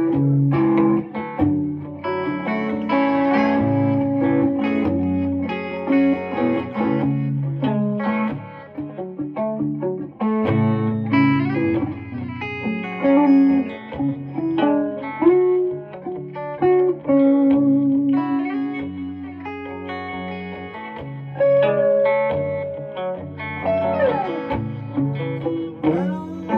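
Electric guitar played solo: single notes and chords ringing out with long sustain, with a falling pitch bend near the end.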